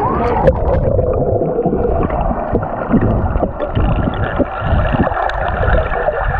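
Muffled sloshing and gurgling of pool water around a waterproof action camera held at or in the water, with a steady stream of low thuds.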